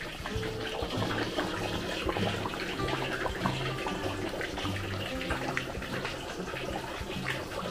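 Oxtail kare-kare in thick peanut sauce simmering in a large wok, bubbling with many small pops.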